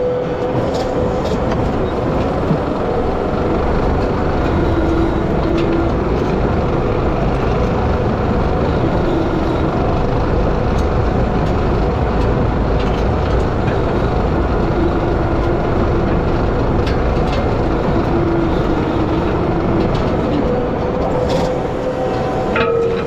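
Skid steer running under load with a hydraulic power rake attachment, its rotating drum churning through dry soil and grass. The noise is loud and steady, with a faint whine that wavers in pitch now and then.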